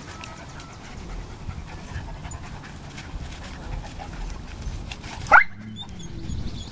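Two dogs, a Great Pyrenees and a black curly-coated dog, play-wrestling, with steady panting and scuffling. A little past five seconds in, one of them gives a single short yelp that rises sharply in pitch.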